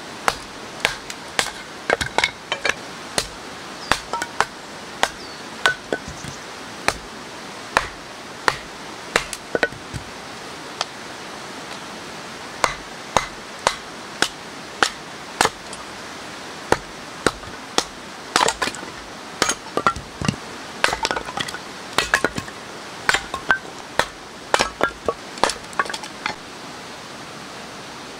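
Kindling being split by batoning: a wooden baton striking the spine of a large knife driven into sticks on a wooden chopping stump. The sharp knocks come at uneven intervals, about one a second and sometimes in quick pairs, over a steady background hiss.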